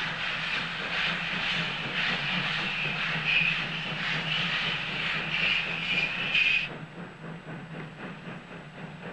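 DR class 86 steam tank locomotive working hard, its exhaust beats chuffing in a steady rhythm over a hiss of steam. About two-thirds of the way through the sound drops off abruptly to a fainter chuffing.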